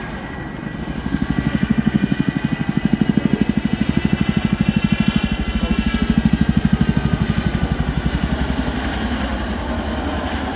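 Boeing Chinook HC6 tandem-rotor helicopter flying past, its two rotors beating in a fast, even pulse over the high whine of its turboshaft engines. It swells about a second in and eases off near the end as it passes.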